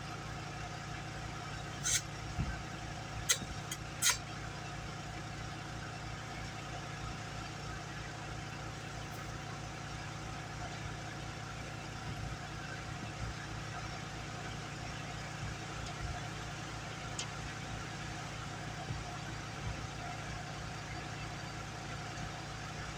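A motor running steadily with an even hum, and three sharp clicks or snaps between about two and four seconds in.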